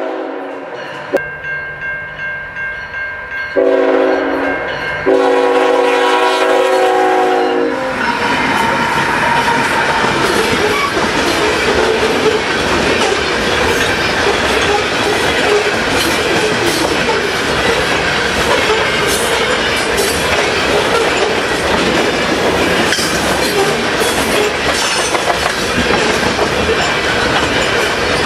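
Freight locomotive air horn sounding a multi-note chord in three blasts as CN ET44AC Gevo units pass close by, the last and longest ending about eight seconds in. After that, a long train of loaded potash hopper cars rolls past at track speed: a steady heavy rumble with the wheels clicking over rail joints.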